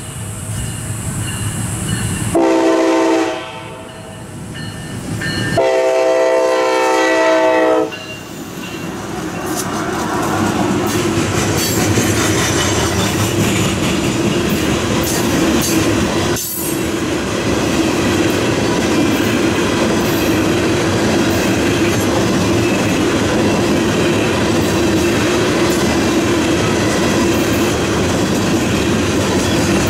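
A diesel locomotive sounds its multi-note horn, a short blast and then a longer one, and the train then rolls past with a steady rumble and wheels clacking over the rail joints.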